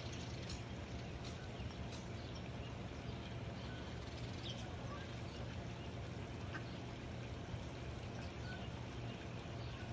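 Steady outdoor background hum with faint, scattered short bird chirps.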